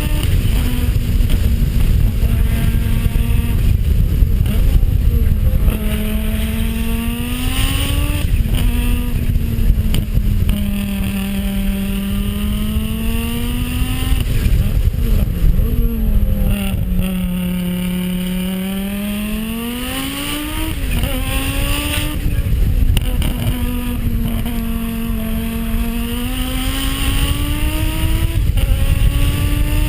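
Rally car engine under hard driving, its pitch sinking as it slows for corners and climbing again as it accelerates out, over and over, with a few sharp cracks along the way.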